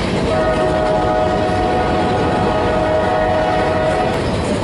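Locomotive air horn held in one long, steady blast of several tones together over a low rumble, breaking off shortly before the end.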